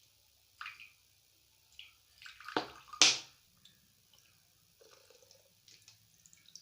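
Demineralised water being poured into a measuring glass in short splashes and drips, with a sharp splash or knock about three seconds in that is the loudest sound.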